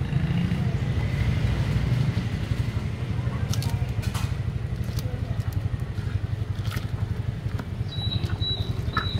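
A steady low rumble, with a few light clicks of a long-handled wire strainer basket knocking against a large aluminium pot of boiling broth as noodles and bean sprouts are blanched. Short high-pitched chirps repeat near the end.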